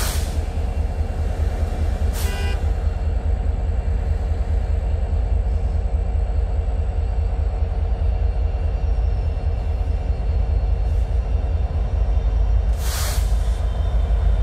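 Norfolk Southern diesel-electric freight locomotives approaching, a steady low engine rumble that grows louder near the end as the lead units draw close. A few brief bursts of hiss come through at the start, about two seconds in, and near the end.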